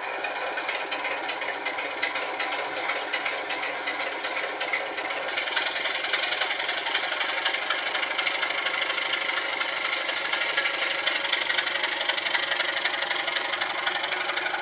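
Model Class 27 locomotive's DCC sound decoder playing a recorded Sulzer six-cylinder diesel engine through a small on-board speaker, thin and without deep bass, mixed with the rattle of model wagon wheels on the track. About five seconds in the sound grows brighter and a little louder as the wagons pass.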